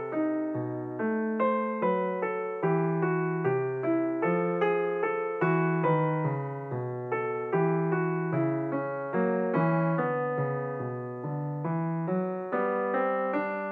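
Background piano music: single notes and chords struck about twice a second, each dying away.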